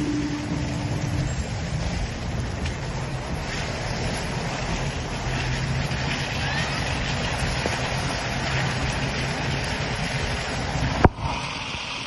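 Wind buffeting a phone's microphone in a rainstorm, a steady rushing noise with a faint low hum beneath it. A single sharp knock near the end as something brushes against the phone.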